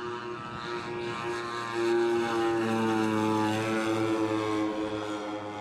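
Twin engines and propellers of a giant-scale radio-controlled Grumman S-2 Tracker model in flight, a steady droning that grows louder about two seconds in as it passes.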